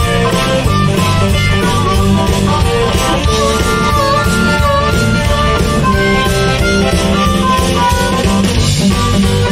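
Blues band in an instrumental break: a harmonica solo with bending notes over electric guitar, bass and drums.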